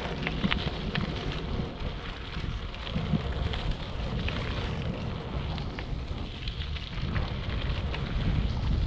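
Wind buffeting the microphone of a moving bike: a steady low rumble, with scattered small crackles and ticks over it.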